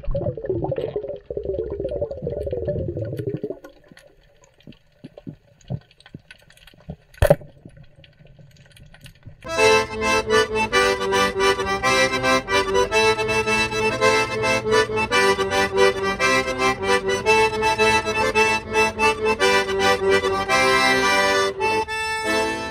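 A piano accordion playing a tune with a steady chordal accompaniment, starting about ten seconds in. Before it there is a short sound with falling tones, then a few faint clicks and one sharp click.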